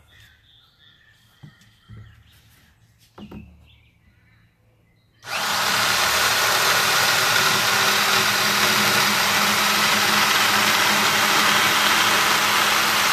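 A few light knocks, then about five seconds in a corded electric circular saw starts and runs steadily at full speed, cutting across a wooden board.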